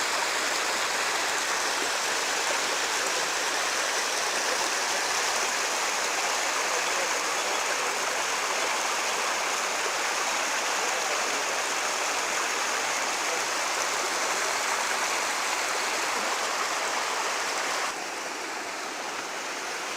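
Stream water rushing and splashing steadily over rocks and small falls, becoming a little quieter near the end.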